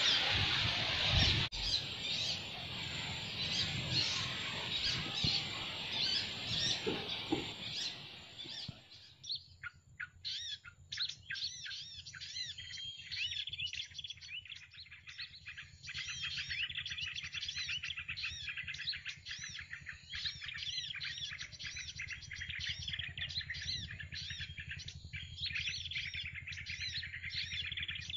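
Small birds chirping, rapid high-pitched chirps repeated over and over. For the first several seconds a broad hiss runs under them, then drops away about a third of the way in, leaving the chirping clear.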